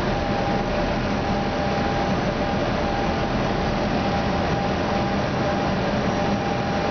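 Steady cockpit noise of an Airbus A320 on final approach: an even rush of airflow and ventilation hiss with a faint constant hum underneath.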